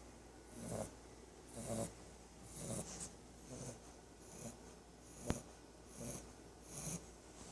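Three-month-old English bulldog puppy snoring in its sleep, a snore on each breath roughly once a second. A single sharp click about five seconds in.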